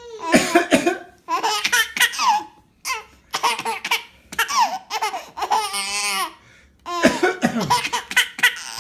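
A young child laughing hard in repeated bouts, set off by a man's deliberate coughs.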